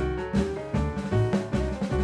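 Background jazz music with a steady drum beat and bass.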